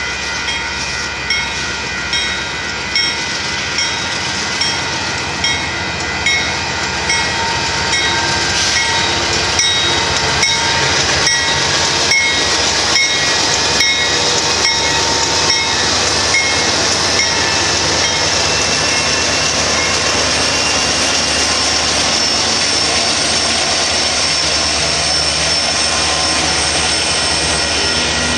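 Grade-crossing bell ringing a little faster than one strike a second while a Union Pacific diesel freight train approaches. The train grows louder about a quarter of the way in, its wheels clicking over the rail joints as the locomotive passes. It then settles into a steady rumble and clatter as the autorack cars roll by.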